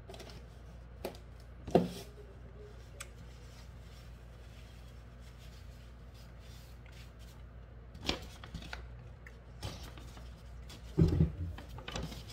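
Scattered handling sounds at a table: a paper napkin rustling as hands are wiped, and a few short knocks, the loudest and heaviest about eleven seconds in.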